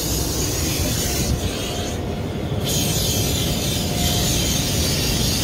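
Automatic car wash heard from inside a pickup's cab: water spray hissing against the glass and body over a steady low rumble of the wash machinery. The hiss drops away about a second and a half in and returns about a second later.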